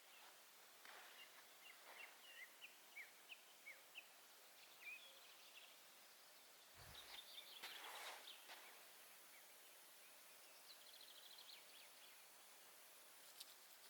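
Faint small-bird calls over quiet outdoor background: a run of short high chirps, then a busier burst of calls with a soft low thump around the middle, and a quick high trill a few seconds later.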